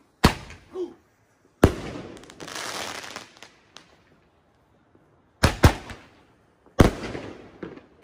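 Handheld multi-shot firework tube (a roman-candle-style ten-shot) firing: about five sharp bangs, two of them in a quick pair, each followed by a fizzing hiss as the shot leaves, the longest hiss after the second bang.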